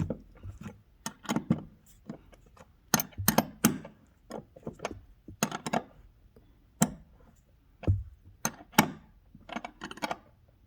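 Irregular metallic clicks and knocks of hand tools and metal parts being handled while a replacement rear seat-belt buckle is fitted.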